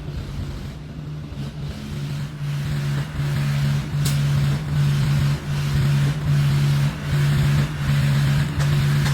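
Engine running with a steady low hum that swells and dips in a regular rhythm, a little more than once a second, louder after the first couple of seconds.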